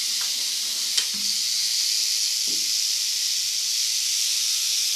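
Rattlesnakes rattling, several at once, blending into a loud, steady, high buzzing hiss. A single sharp click sounds about a second in.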